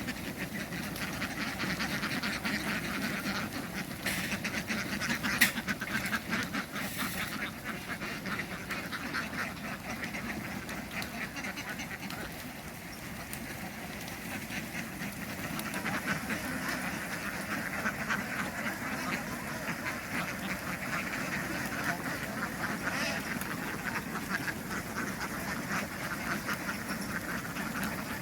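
A large flock of ducks quacking continuously, many birds calling over one another, with a single sharp knock about five seconds in.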